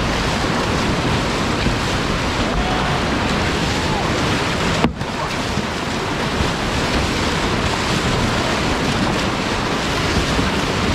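Whitewater rapid rushing and churning around a slalom kayak's hull, a steady loud wash of water with wind buffeting the microphone. One sudden spike about five seconds in, with the sound cutting out for an instant.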